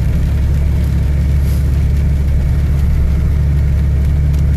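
Car running down the road, a steady low engine and road drone heard from inside the cabin.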